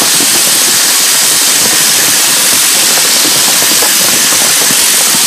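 Sheep-shearing handpiece running steadily as it cuts through a sheep's fleece, a loud, even buzz with a hissy top.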